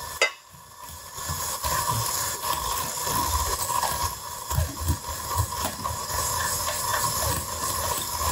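Red electric hand mixer running steadily, its beaters whirring through egg yolks and sugar in a glass bowl, with a sharp click near the start.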